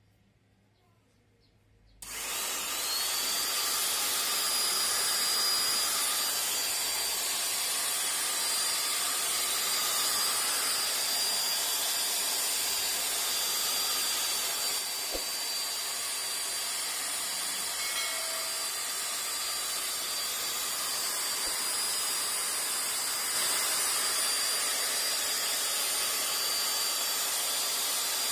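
Electric drill spinning a buffing pad, polishing a headlight lens. It starts abruptly about two seconds in with a brief rising whine, then runs steadily with a high motor whine over a rushing noise.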